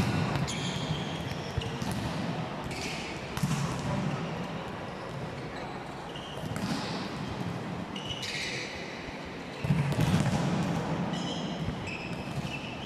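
Basketball game sounds: sneakers squeaking in short, high chirps, a basketball thumping on the floor now and then, and a crowd chattering.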